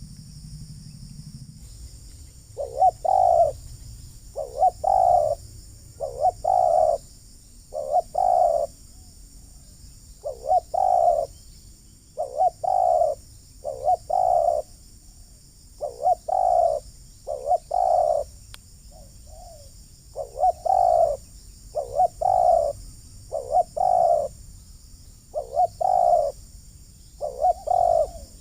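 Spotted dove cooing: short phrases of two or three coos, repeated about every two seconds, starting a couple of seconds in.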